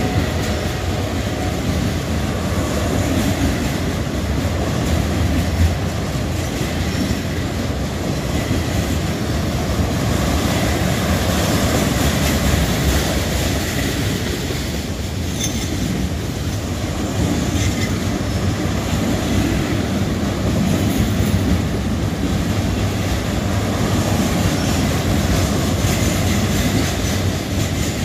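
Loaded rail train rolling by, steel wheels running steadily over the track with a clickety-clack and some wheel squeal.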